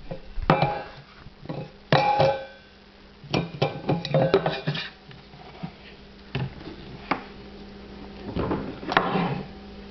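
A small stainless steel bowl being knocked and shifted about on a toy kitchen counter by a child's hands: a string of irregular clatters and taps, some ringing briefly, the loudest about two seconds in.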